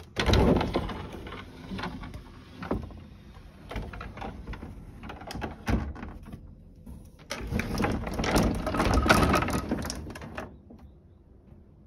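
Old wooden sliding doors being slid open, scraping and rattling in their tracks with scattered knocks: one loud push at the start, and a longer one of about three seconds past the middle.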